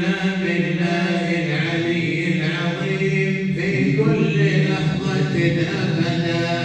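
Unaccompanied group chanting of a Sufi salawat, blessings on the Prophet Muhammad. The voices hold long, drawn-out notes that slide slowly up and down.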